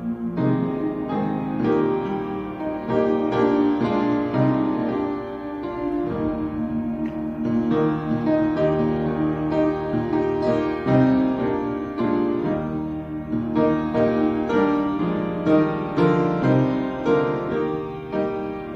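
Instrumental piano music: slow, sustained chords and melody notes.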